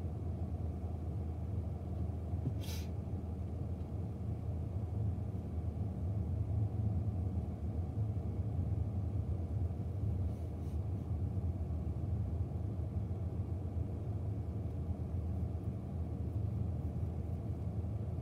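BNSF double-stack intermodal freight train rolling past, a steady low rumble heard through a closed window, with one short click about three seconds in.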